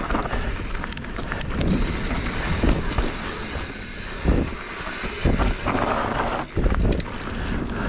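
Mountain bike rolling over a dirt trail, with wind buffeting the microphone and the bike rattling, and several sharp knocks as it goes over bumps.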